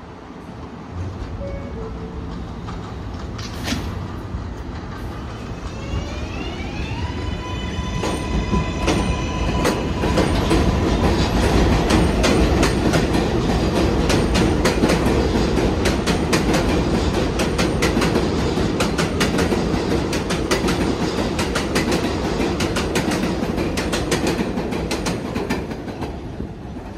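R188 subway train pulling away from the station. Its motors give a whine that rises in pitch about six seconds in and then holds steady, and after that the wheels clatter over the rail joints, louder as the cars go by and fading near the end.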